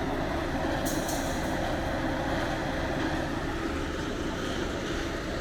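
Steady rumble of a vehicle on the move: engine and road noise with an even hiss above it.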